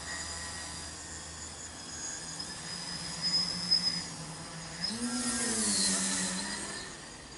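Tricopter's three 900 kV brushless motors and 8x4.5 carbon-fibre propellers buzzing in flight. The pitch steps up about five seconds in, with a louder rush for a second or two, then eases back down.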